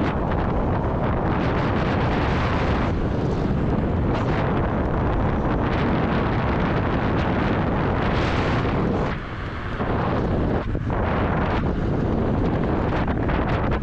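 Wind rushing over the microphone while riding a Dualtron Thunder electric scooter: a steady, loud rush that drops briefly about nine seconds in.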